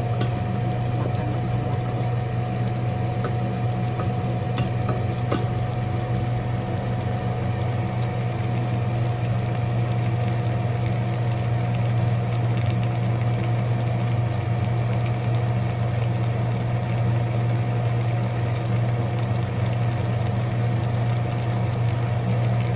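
A stew simmering in a stainless steel pot, stirred now and then with a wooden spoon, with a few faint clicks. Under it runs a steady low hum with a thin high tone.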